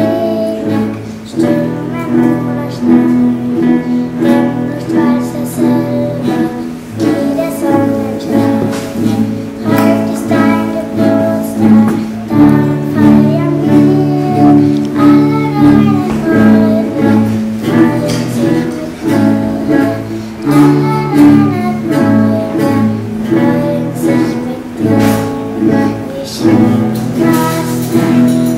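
Two acoustic guitars strummed together in a steady rhythm, with a woman and a girl singing along.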